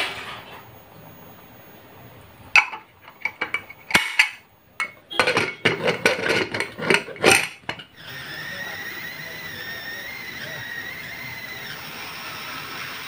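Aluminium pressure cooker lid clinking and clanking against the pot as it is set on and twisted shut, a run of sharp metal knocks. From about two-thirds of the way in, a steady hiss with a faint wavering whine takes over.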